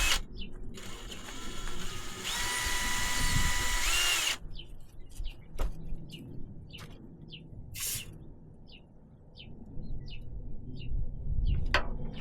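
A power drill runs for about three and a half seconds and then stops, its pitch rising just before it cuts off. After it come a few sharp clicks and knocks, with a small bird chirping steadily about twice a second in the background.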